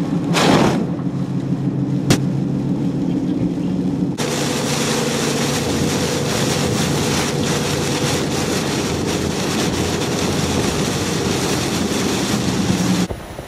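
Vehicle driving through torrential tropical-storm rain, heard from inside the cab: engine and road hum under rain, with a brief loud rush of spray hitting the vehicle about half a second in and a sharp click about two seconds in. After about four seconds a denser, steady roar of wind-driven rain and road noise takes over.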